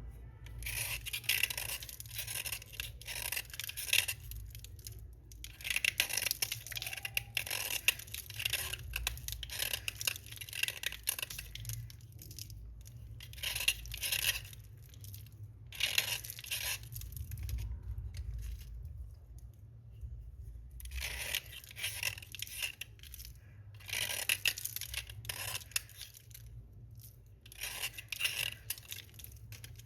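Slate pencils crunching and scraping close up, in repeated gritty bursts of one to a few seconds with short pauses between.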